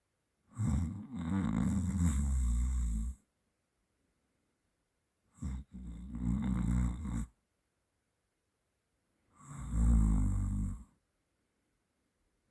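A sleeping person snoring: three snores about four to five seconds apart, each lasting one and a half to nearly three seconds, with quiet between them.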